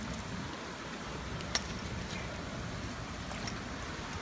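Steady rushing of a flowing stream, with one sharp click about one and a half seconds in.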